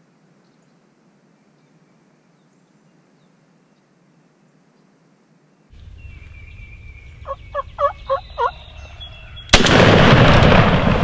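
Wild turkey gobbling, a quick run of about five notes past the middle, followed about a second later by a sudden, very loud gunshot with loud noise continuing after it.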